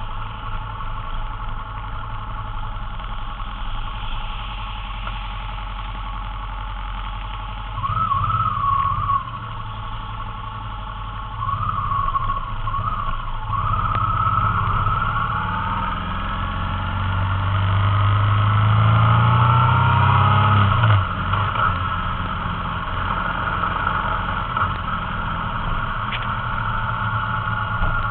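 Motorcycle engines idling and pulling away, with two short revs about eight and twelve seconds in, then a long rise in engine pitch as a bike accelerates, which drops off suddenly about three-quarters of the way through.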